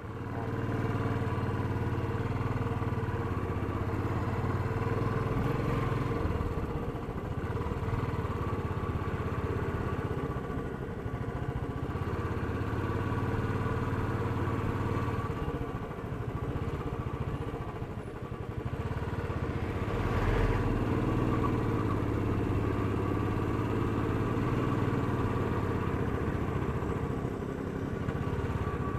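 Royal Enfield Classic 350's single-cylinder engine running while the motorcycle is ridden, its note swelling and easing several times. There is a brief low thump about two-thirds of the way through.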